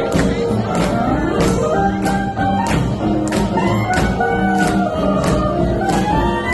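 Swing jazz music with a steady beat, brass and percussion.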